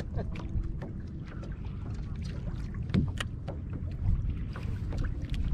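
Wind buffeting the microphone over choppy water, with small waves lapping against a plastic kayak hull and scattered irregular clicks and taps.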